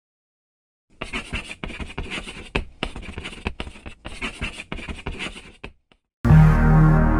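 Writing sound effect of a pencil scratching on paper: quick, irregular scratching strokes for about five seconds. About six seconds in, music starts loudly with steady held bass notes.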